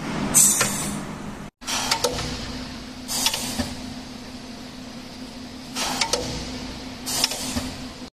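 Semi-automatic gummy candy depositor cycling: a steady machine hum with several short hissing bursts as it deposits.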